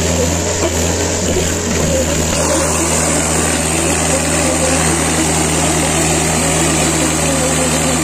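Diesel engines of Mahindra farm tractors running steadily as they drive slowly in a line, with a steady low engine drone.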